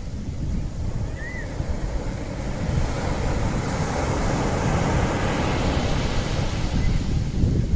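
Steady rushing noise like surf and wind, swelling in the middle, with one short high chirp about a second in.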